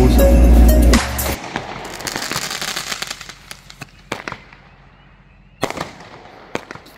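Background music with a heavy bass beat cuts off about a second in, and fireworks take over. First comes a dense crackling that fades over a couple of seconds, then a few separate sharp pops.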